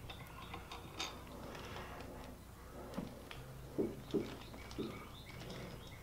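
Faint handling noises: light clicks and crinkling of plastic wrap, with a few soft knocks about four seconds in as a crash bar and an Allen socket are worked against the bike's frame bolts.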